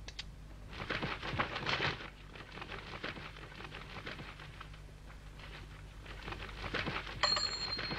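Cartoon sound effects: a vulture's wings rustling and flapping. Near the end a gold coin drops into a slot in a metal statue with a sharp clink that keeps ringing.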